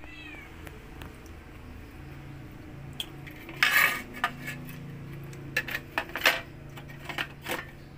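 Metal clatter and sharp clicks from a portable gas stove's metal body and burner parts being handled. There is a louder clatter a little before halfway through, then a string of separate clicks.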